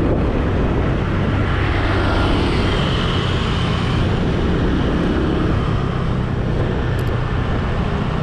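Motor scooter's engine running steadily at cruising speed, a low hum with road noise while riding.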